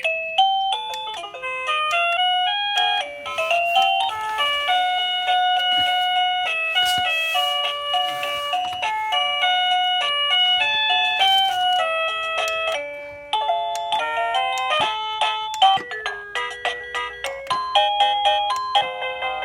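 Liztek wireless doorbell receiver playing its electronic chime tunes one after another, bright synthesized melodies of quick notes with a short break about 13 seconds in.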